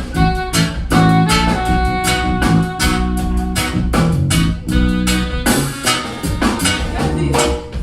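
Live band playing an instrumental passage: drum kit and bass under an alto saxophone holding long notes.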